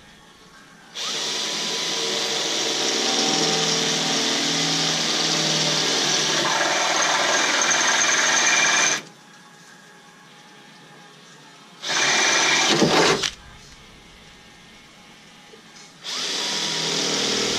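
Cordless drill boring out pilot holes to 1/4 inch in a Jeep Wrangler JK's thin sheet-metal hood, in three runs: a long one of about eight seconds starting a second in, a short burst about twelve seconds in, and another starting near the end.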